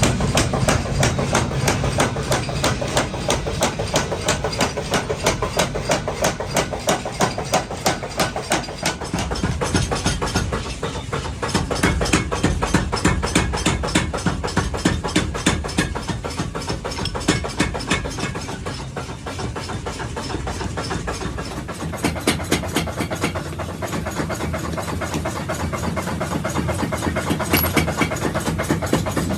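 Power hammer forging hot iron for tongs: fast, even blows, about four or five a second, over the machine's steady running.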